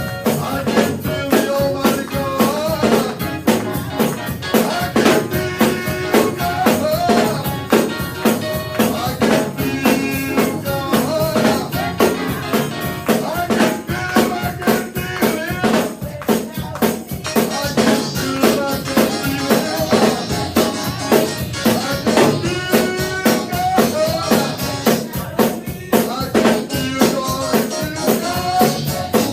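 Church worship band playing, with a drum kit keeping a steady beat under pitched instruments.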